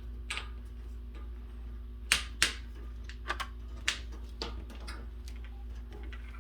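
Scattered sharp clicks and taps of metal hardware being handled while a bolt is worked into a threaded hole in a desk frame, the loudest two close together about two seconds in, over a steady low hum.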